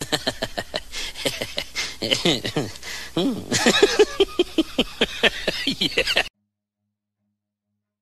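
A small dog yelping and squealing in a rapid series of short cries that fall in pitch, stopping abruptly about six seconds in.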